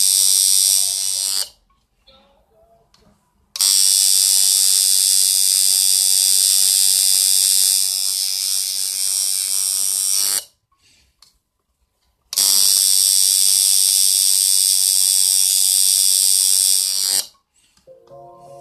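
Coil tattoo machine buzzing steadily as it works the needle into skin. It runs in three stretches of several seconds each and stops between them, once about a second and a half in and again about ten seconds in.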